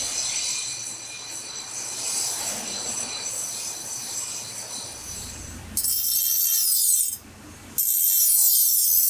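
A high, steady squealing whine for the first five seconds or so, then an abrasive bench-grinder wheel grinding a long steel tuna-knife blade. The grinding is loud and harsh, starts about six seconds in, stops briefly near seven seconds, and runs again from about eight seconds.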